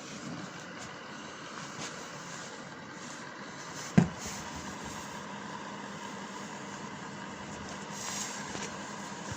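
A single sharp knock about four seconds in, over steady background noise.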